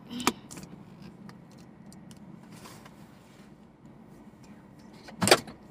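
Faint scratching and rustling handling noise with scattered small clicks, and one louder brief rustle or bump about five seconds in.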